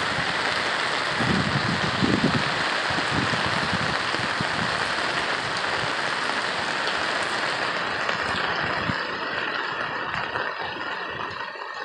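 Rain falling steadily, an even hiss that eases a little near the end.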